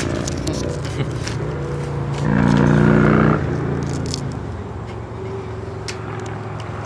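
Steady hum of road traffic, with one loud held tone lasting about a second, a couple of seconds in.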